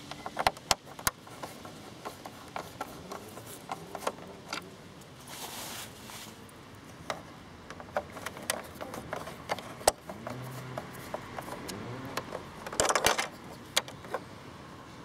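A screwdriver turning small screws out of a motorcycle's plastic rear light housing: scattered sharp clicks, taps and scrapes of the tool against plastic and metal. Two longer scraping rustles come about five and a half and thirteen seconds in, the second the loudest.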